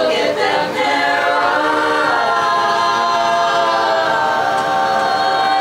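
Women's a cappella vocal group singing in harmony without instruments. The voices move through a few pitch changes, then hold a long sustained chord for the last few seconds.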